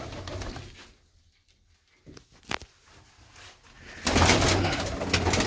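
Domestic pigeons cooing and stirring in a loft. The sound drops to near silence after about a second, broken only by a couple of short clicks, then returns loud about four seconds in.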